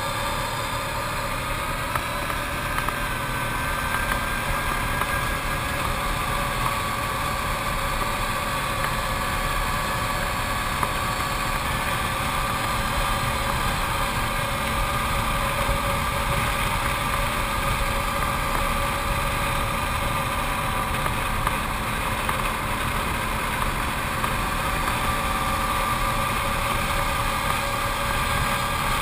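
Arctic Cat TRV 1000 ATV's V-twin engine running steadily while climbing, its pitch drifting slowly up and down.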